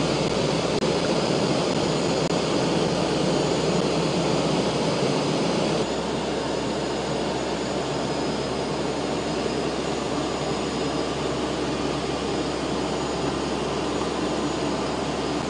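Aircraft engines running, a loud steady drone that drops slightly in level about six seconds in.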